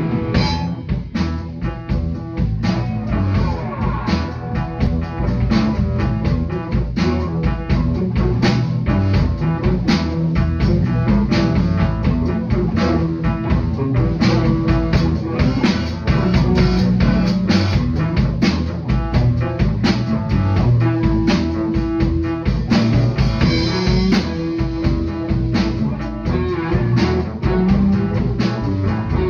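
Live blues-rock band jam: electric guitar, bass guitar and drum kit playing together, with held, sustained guitar notes over a steady drum beat.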